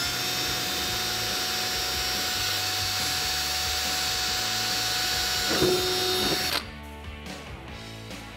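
Cordless drill spinning a small bit to drill out the center of a plastic push rivet in a wheel-well liner: a steady high whine for about six and a half seconds. Just before it stops the pitch drops, then it cuts off suddenly.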